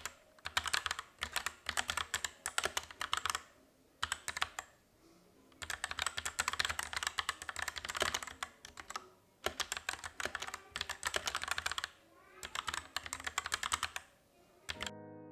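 Typing on a mechanical keyboard fitted with factory-lubed Pressplay Jupiter switches: fast runs of key clicks in several bursts, with short pauses between them.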